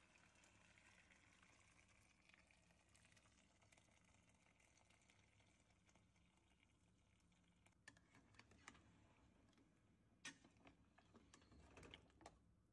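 Near silence: faint splashing of water poured into a pot of meat, with a few faint clicks in the second half.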